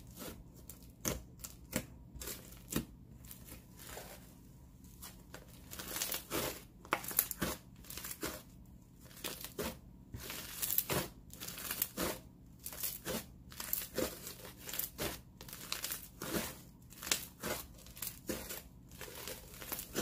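Snow fizz slime with foam beads being stretched, pressed and folded by hand, giving irregular sizzly crackles and pops, a few a second.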